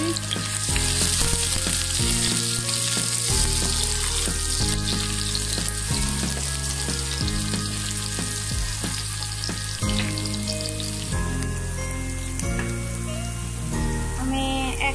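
Sliced onions sizzling as they fry in hot oil in a wok, stirred with a wooden spatula. The sizzle gets quieter near the end.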